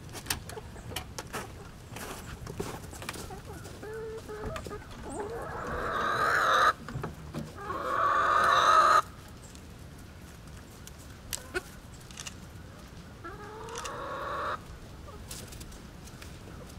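Young hens, pullets not yet laying, clucking, with three long drawn-out calls: two loud ones close together partway through and a softer one later.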